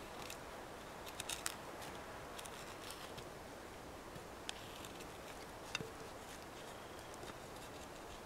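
Tip of a Fallkniven A1 knife being twisted into a wooden board to drill a hole: faint, irregular scrapes and clicks of steel grinding into wood over a low steady hiss.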